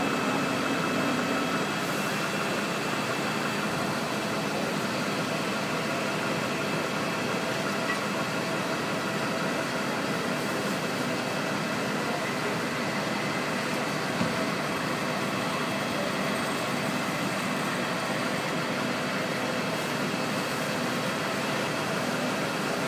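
Steady engine noise, as of a fire engine idling: a constant hum with faint steady whines over it. A single short knock about fourteen seconds in.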